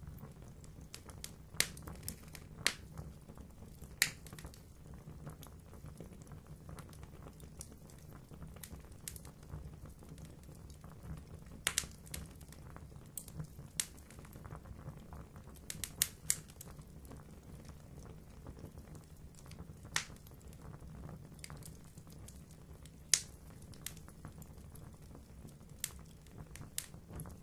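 Fire in a fireplace crackling: irregular sharp pops over the steady low rumble of the flames.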